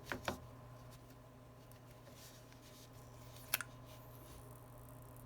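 Faint steady electrical hum with a few small sharp clicks and taps of handling small parts and tools: two at the very start and a sharp double click about three and a half seconds in.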